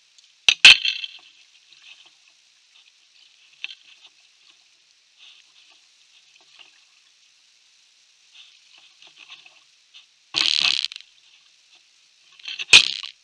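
Sharp knocks of a kayak paddle against the plastic hull of a kayak, the loudest near the start and near the end, with a short splashing rush about ten seconds in and faint crackling of water between.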